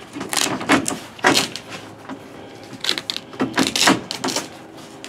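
A roll-up tonneau cover's bars and rail clamps knocking and rattling as they are handled and seated into the pickup bed's side rails, in a series of irregular clatters.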